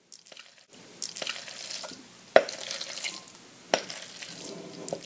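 Cooked macaroni in cheese sauce sliding out of a glass bowl and landing in a ceramic bowl: soft wet squelching and plopping, with two sharp clicks, one about halfway through and another a second or so later.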